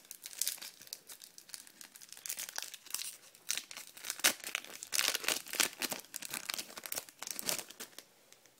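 Foil wrapper of a Topps Match Attax trading-card packet being torn open and crinkled by hand: a run of irregular crackles and rips that stops shortly before the end.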